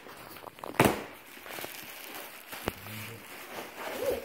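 Cardboard shipping box being pulled open and plastic packaging crinkling, with a sharp snap about a second in and a lighter one near the end.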